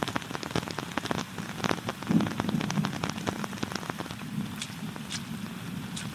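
Steady rain with a dense run of sharp taps and crackles over the first few seconds that thins out, and a low rumble swelling about two seconds in.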